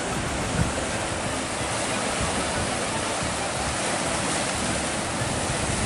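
Ocean waves breaking on a shore: a steady, even rush of surf.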